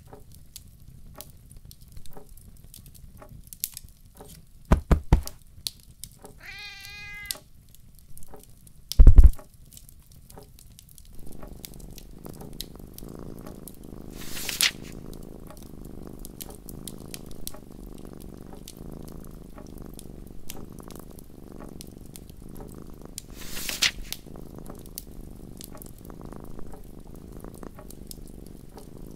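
Layered fireside ambience: a wood fire crackles with scattered sharp pops, a cat meows once about six seconds in, and a single heavy thump comes about nine seconds in. From about eleven seconds a cat's steady low purring sets in and continues, with a couple of brief rustles.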